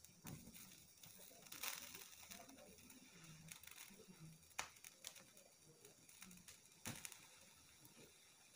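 Faint, sparse crackles and pops from an eggplant and a tomato roasting directly over a gas flame on a wire mesh, a handful of sharp snaps over a soft steady hiss.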